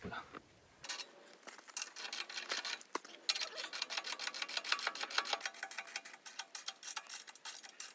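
Socket ratchet clicking in a rapid, even train, about eight clicks a second, as the subframe bolts are run in.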